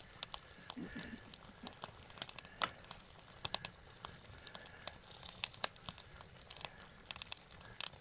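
Meat frying in a pan over a burning Swedish log stove: soft, irregular pops and crackles of sizzling fat and burning wood while the meat is stirred with a wooden spoon.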